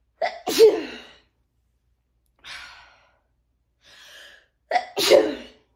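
A woman sneezing twice, about four and a half seconds apart, each sneeze preceded by a short sharp catch of breath. Softer breaths can be heard between the two sneezes.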